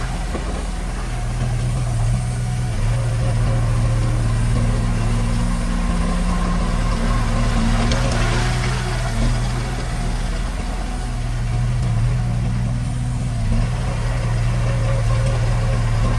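Heavy diesel engine of earthmoving equipment running steadily. Its note drops briefly about a third of the way in and again about two-thirds in, with a rush of noise about halfway through.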